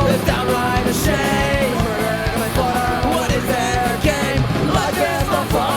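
Punk rock song with loud distorted guitars, drums and a singing voice.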